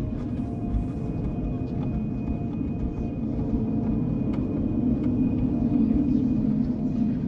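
Dark ambient drone: a low rumble with a few steady held tones above it, its lower middle swelling louder in the second half.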